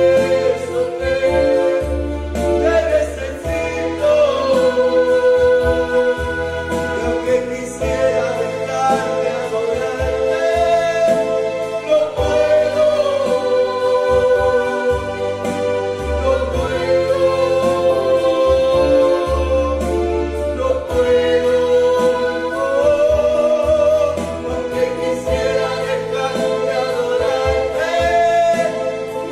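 Gospel praise song performed live: a woman and a man singing long held notes to electronic keyboard accompaniment with sustained bass notes.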